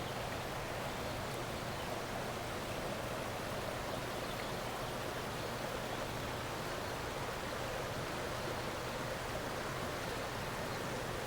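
Water of a shallow creek running low, flowing steadily with an even rushing hiss.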